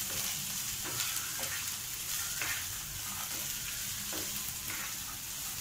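Corn, green capsicum and shredded cabbage sizzling steadily in hot oil in a nonstick frying pan, stirred with a wooden spatula that scrapes across the pan now and then.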